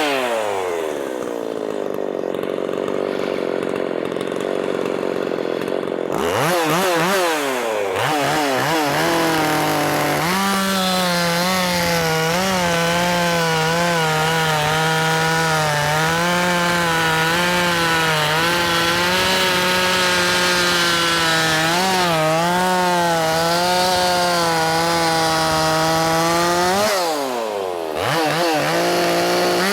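Ported Makita 5600 two-stroke chainsaw cutting wood. The engine drops off full throttle to a low speed at the start and revs back up after about six seconds. It then holds high revs with a wavering pitch as it works through the cut, with a short dip and recovery near the end.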